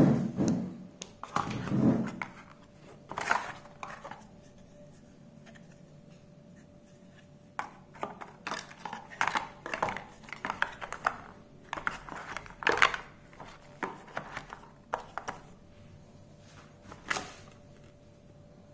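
Phone packaging and accessories being handled by hand: irregular rustles, taps and clicks of a plastic-bagged USB cable and a cardboard box and tray. There is a loud bump at the start, then a quiet stretch of a few seconds before more handling.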